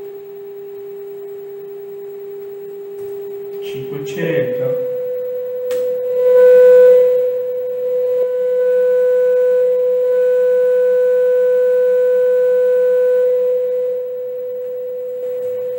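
Steady 400 Hz sine-wave test tone from a signal generator. About four seconds in, after a brief rustle, it steps up to a slightly higher steady tone, with a small click shortly after.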